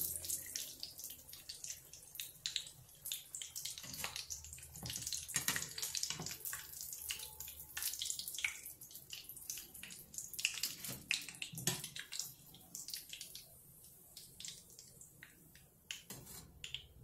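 Breaded kababs frying in shallow hot oil: a steady sizzle with many small crackling pops, thinning out near the end as the last kababs are lifted out of the pan.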